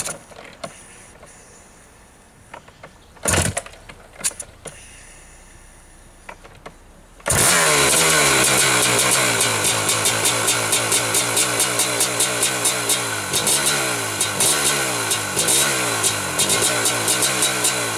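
1981 Maico 490 two-stroke single-cylinder dirt bike engine starting: after a few sharp knocks it fires suddenly about seven seconds in, then runs loud with the revs rising and falling as the throttle is blipped.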